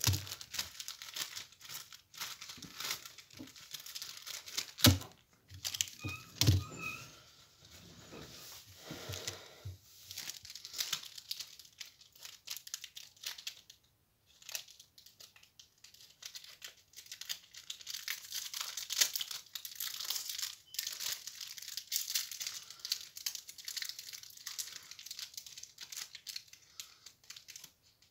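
Irregular crinkling and rustling close to the microphone, with a few louder knocks about five and six and a half seconds in.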